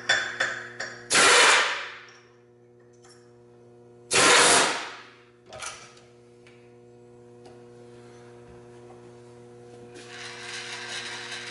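Two short bursts from a pneumatic tool at the milling machine, about three seconds apart, each fading out within a second, typical of an air impact wrench snugging the drawbar on a freshly fitted edge finder. A steady electrical hum runs underneath.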